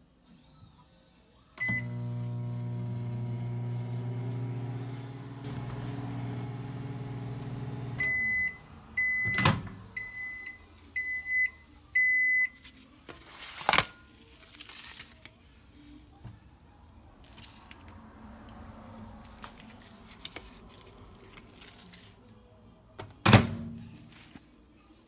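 Hamilton Beach microwave oven: a keypad beep, then the oven runs with a steady hum for about six seconds and stops, followed by about five end-of-cycle beeps. A loud click as the door is popped open comes among the beeps, and a sharp knock comes near the end.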